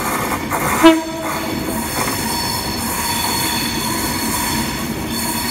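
Avanti West Coast Class 390 Pendolino electric train approaching along the platform: a short horn toot about a second in, then its running noise with a steady high-pitched wheel squeal.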